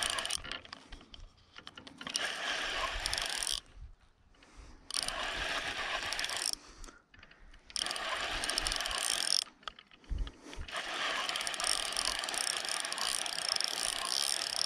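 Fishing reel being cranked to retrieve line with a small crucian carp hooked on a bottom rig, a mechanical whirring of the reel's gears. The winding comes in bouts of a second or two with short pauses, then runs steadily from about ten seconds in.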